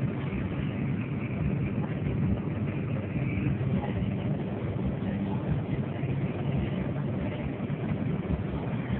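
Interior cabin noise of a Škoda Felicia cruising steadily at about 100–110 km/h: a constant hum of engine and tyre/road noise that stays even throughout.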